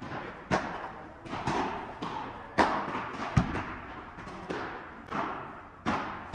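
Padel rally: solid rackets striking the ball and the ball bouncing on the court, about ten sharp knocks at uneven intervals of half a second to a second. Each knock is followed by a brief echo.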